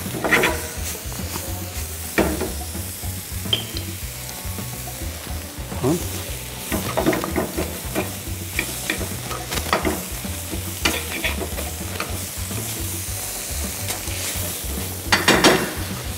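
Soya chunks with tomatoes and green chillies sizzling in oil in a black skillet while a metal spatula stirs them, scraping against the pan at irregular moments, the loudest scrape near the end.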